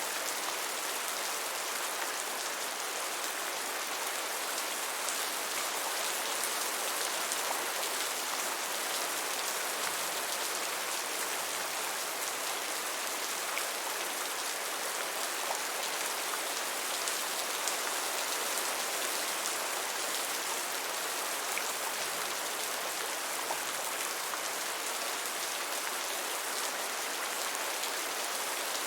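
Gentle rain falling steadily: an even hiss of rain with faint scattered drop ticks.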